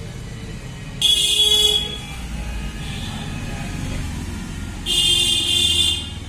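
Two blasts of a vehicle horn, one short and one about a second long, over a low steady traffic rumble.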